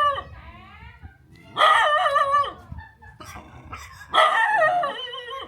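A dog barking in long drawn-out, wavering calls, three of them about two seconds apart.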